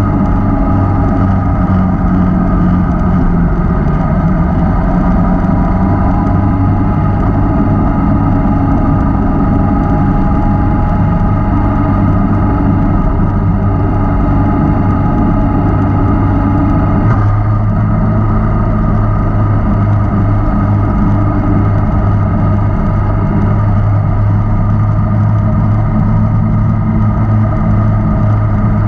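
Inline-four sport motorcycle engine heard from on board, running steadily at cruising speed. Partway through there is a short knock, and after it the engine note changes and the low tone grows stronger.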